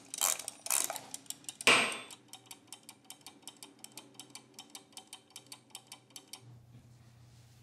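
Wind-up egg timer: the dial is twisted with a few loud ratcheting strokes, then the clockwork ticks evenly at about five ticks a second. The ticking stops about three-quarters of the way through, leaving a low hum.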